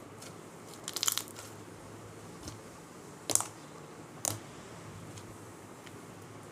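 Slime with foam mixed in being squeezed and pressed by hand, giving three short crackling crunches with a few faint clicks between them.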